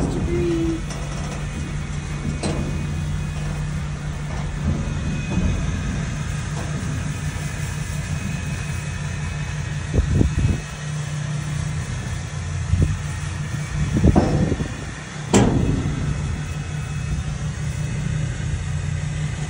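Steady drone of the tow vehicle's engine and road noise, heard from inside a metal horse trailer as it is towed, with a few louder knocks about halfway through and again a little later.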